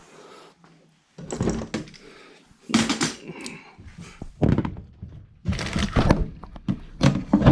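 Large plastic electronics enclosure being handled, with several hollow thunks and knocks of plastic about a second apart.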